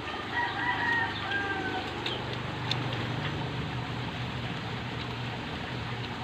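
A rooster crows once, a pitched call about a second and a half long near the start, over a steady low hum. A few faint clicks follow.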